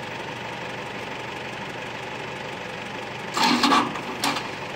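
Cable reel machine's engine running steadily at idle, with a voice breaking in about three and a half seconds in.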